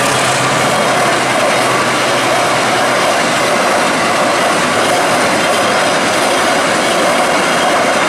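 Container freight train rolling past over a level crossing: a steady, loud rumble and clatter of the loaded flat wagons' wheels on the rails.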